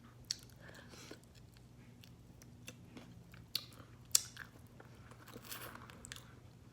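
A person biting and chewing crispy fried chicken close to the microphone: scattered crunches and mouth clicks, with a few sharper bites.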